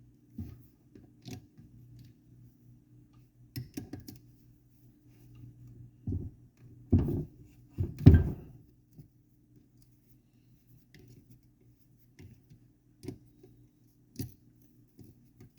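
Hand tools working the 8mm bolts on an ATV engine case: scattered metal clicks and clinks, with two louder knocks about 7 and 8 seconds in, over a steady low hum.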